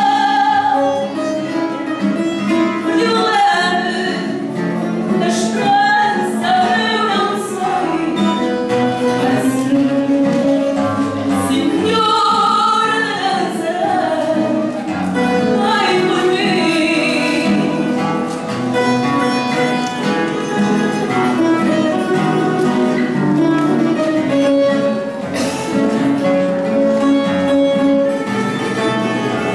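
A woman singing, with long held notes, accompanied by a Portuguese guitar and a classical guitar.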